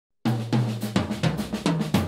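A drum kit playing a busy groove that starts about a quarter of a second in. Strong hits come about three a second, each low drum ringing briefly and sagging in pitch, over cymbal wash.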